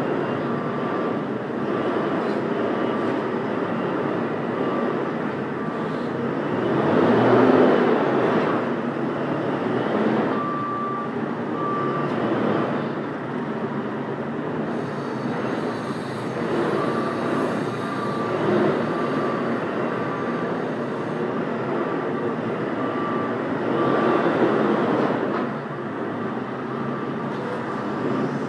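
JCB 536-70 Super Agri telehandler's diesel engine running, revving up in swells as it lifts and moves straw bales. A beeper, typical of a reversing alarm, sounds in several spells of short beeps about two a second.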